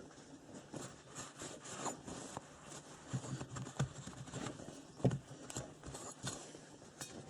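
Cloth rag rubbing and scraping over metal starter-motor parts during cleaning, with scattered light clicks and knocks as the parts are handled, one sharper knock about five seconds in.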